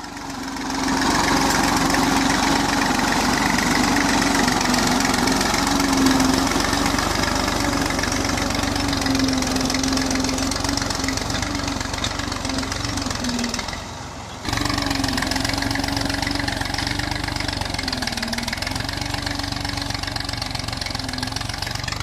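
Diesel farm tractor engine running steadily under load as it pulls a tine cultivator through a cotton field, with a short drop-out about two-thirds of the way through.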